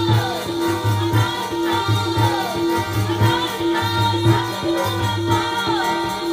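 Sikh kirtan music: a harmonium playing sustained, pulsing notes and a tabla playing a steady rhythm, with a woman singing a devotional hymn over them.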